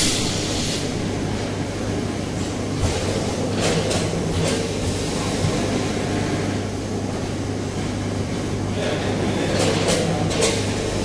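Food packing line running, a multihead weigher together with a pneumatic piston liquid filler: a steady mechanical hum, broken by a few short bursts of hiss a few seconds apart.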